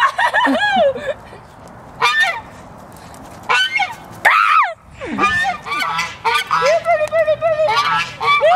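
Domestic white geese honking, a run of repeated calls in several bursts that run almost without a break over the last few seconds.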